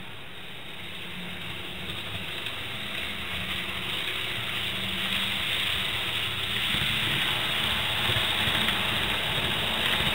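Kato N gauge Eurostar model train running along the track, a steady whir of motor and wheels on rail that grows louder as it approaches and passes.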